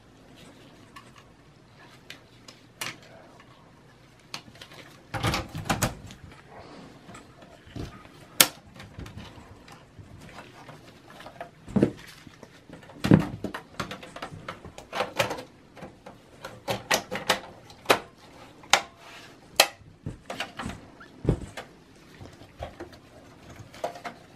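Plastic hard-drive caddy being handled and pressed into a desktop PC's metal chassis, with cables being handled: irregular clicks and knocks, a few of them louder.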